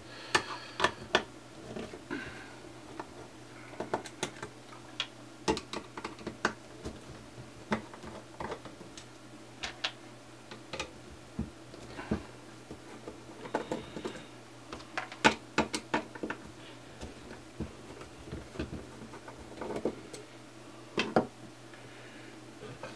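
A screwdriver taking the screws out of the back panel of an LED PAR can's metal housing: scattered light clicks and taps as the screws turn, come loose and are handled. A faint steady hum runs underneath.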